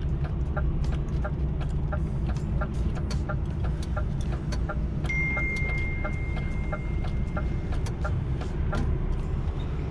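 DAF XF truck's diesel engine running at low revs, heard inside the cab, with a regular ticking about three times a second. A steady high-pitched beep starts about halfway through and holds.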